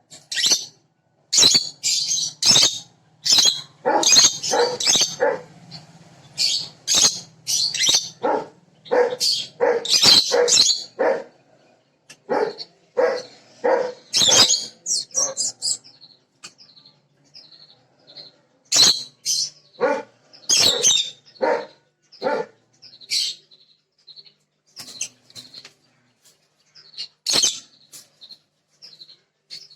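Birds calling: short, sharp chirps and squawks one after another, thick for the first half and sparser after that.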